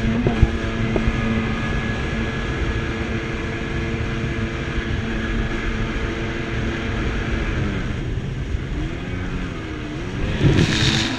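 Jet ski engine running at a steady cruising note, with wind and water rushing past. About three quarters of the way through, the engine note drops and wavers as the ski banks into a turn, then a short burst of water spray hisses near the end.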